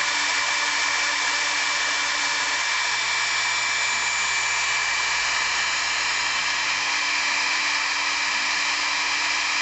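Hobby CNC router's spindle running steadily with a high, even whine while it mills wood.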